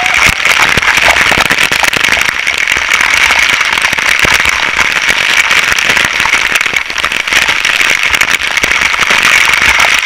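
Waterfall water pouring and spattering straight onto a body-mounted action camera: a loud, steady rush of falling water crackling with many small hits of drops on the camera.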